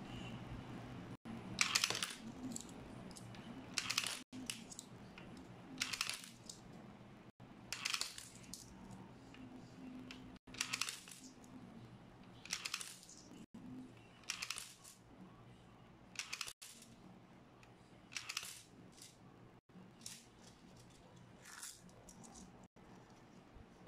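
Coins fed one at a time into a wh Münzprüfer EMP500 coin acceptor, each dropping through the mechanism with a short metallic clatter about every two seconds, about a dozen in all. The acceptor is on a bench test and taking the coins.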